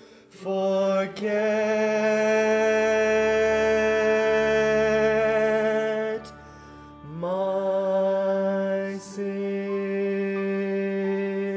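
Choral vocal music from a tenor rehearsal track: the closing phrase is sung as long, held notes with vibrato. About six seconds in it dips briefly, then slides up into a final sustained note.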